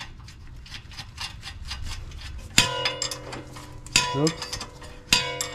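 Metal tools and parts rattling and clicking while a steering tie rod end is refitted to the knuckle, then three sharp metal clanks about a second apart, each ringing out briefly.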